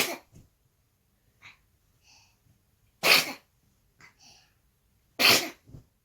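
A baby sneezing three times: once at the start, again about three seconds in, and again about five seconds in, with small faint sounds between the sneezes.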